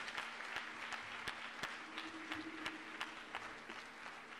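Audience applauding with many hands clapping. The clapping thins out toward the end.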